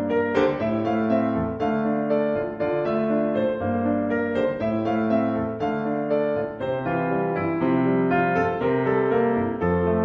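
Instrumental background music: a piano playing a melody over changing chords at an even pace.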